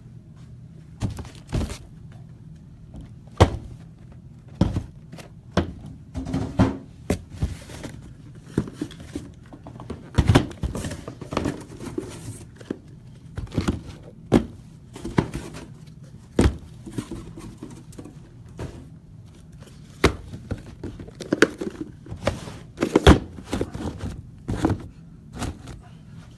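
Irregular clicks, taps and thunks of trading-card boxes and packs being handled and set down, with some crinkling of wrappers, over a faint steady low hum.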